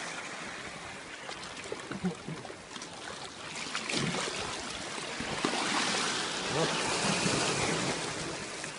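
Sea water washing and splashing against shoreline rocks, a steady rush that swells louder in the second half and eases near the end.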